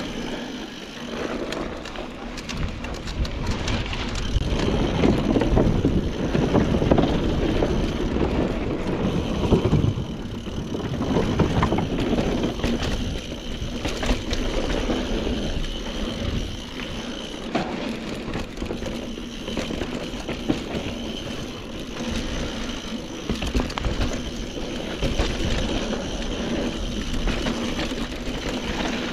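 Mountain bike riding down a dirt trail: a steady noise of tyres and frame, with many small rattles and knocks, loudest from about four to ten seconds in.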